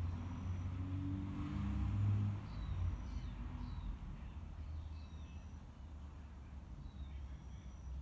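A low vehicle-like rumble that eases off about two and a half seconds in, with small birds giving short, high chirps throughout.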